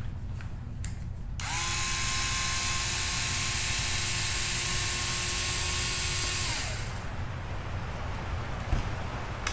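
Cordless electric screwdriver running steadily for about five seconds, backing out the last screw holding a part on an RC truck chassis, then winding down with a falling whine. A few light clicks of handling come before and after.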